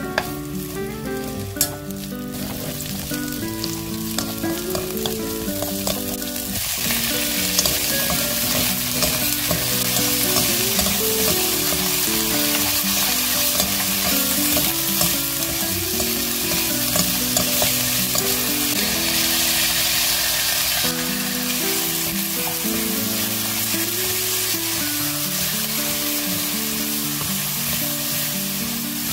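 Sliced onion and squid sizzling in oil in a hot non-stick frying pan as they are stir-fried with wooden spatulas over high heat. The sizzle grows much louder about seven seconds in and eases a little near the end.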